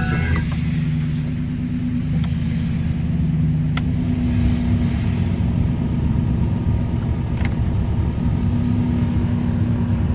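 Ford F-150 pickup's engine idling steadily, heard from inside the cab, with a few faint clicks.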